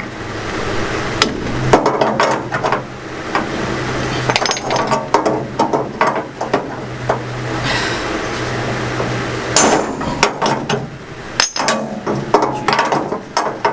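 Irregular hammer blows and metallic clanks on steel car parts. A steady low hum runs under them.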